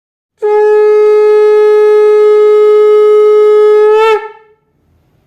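Conch shell (shankha) blown in one long steady note, which wavers and drops in pitch as it cuts off.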